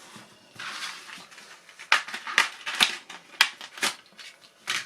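Small packaging being handled and opened: a soft rustle, then a run of sharp, irregular crackles and clicks.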